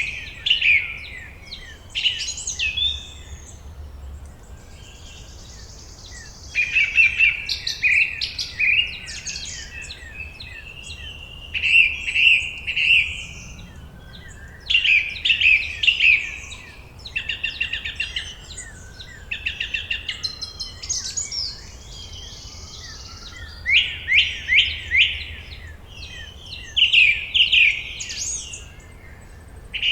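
Forest songbirds singing: bursts of quick, high chirping notes every few seconds, with fainter calls from other birds in between.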